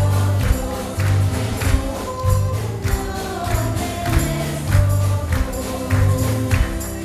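Congregation singing a Christmas carol with a live band, a steady beat of bass and drums, and hand claps.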